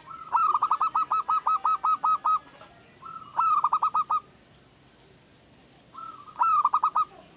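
Male zebra dove (perkutut) cooing in three phrases, each a rising first note and then a quick run of repeated coos: a long run of about ten, then two short runs of four or five. It is a newly kept wild-caught bird still learning its call.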